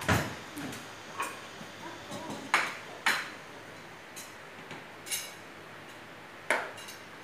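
Spoons and serving utensils clinking against plates and bowls as food is served: about seven sharp, scattered clinks with a short ringing tail.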